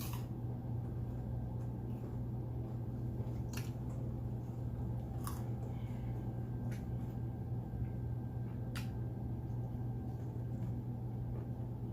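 A person chewing food, with a handful of short, sharp mouth clicks scattered through, over a steady low hum.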